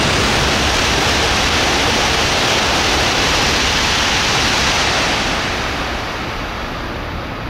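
Coupled E5-series and E6-series Shinkansen (Hayabusa and Komachi) passing through the station at about 308 km/h: a loud, steady rushing noise that fades after about five and a half seconds as the train goes by.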